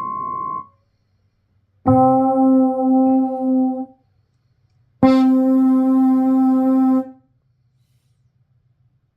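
Keyboard-like synth preset notes from the Drift Theory sample library, auditioned one at a time: a held note stops just after the start, then two separate held notes of about two seconds each, both on the same pitch, the first with a slight wavering in loudness, with silence between.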